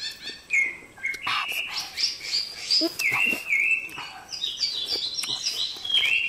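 Birds chirping in rapid series of short, high, falling notes, with a few sharp clicks among them.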